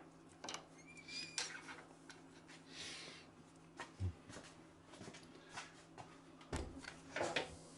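Faint handling sounds of a pen blank being clamped tight for drilling: scattered light clicks and knocks, a short scrape about a second in, and a sharper knock near the end.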